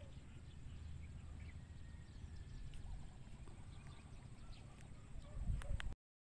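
Open-air lakeside ambience: a steady low rumble of wind on the microphone with faint, scattered chirps, and a few light clicks just before the sound cuts out near the end.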